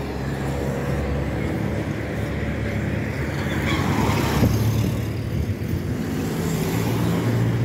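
Road traffic at close range: a steady low engine drone from vehicles on the road, with a minibus passing close by about four seconds in.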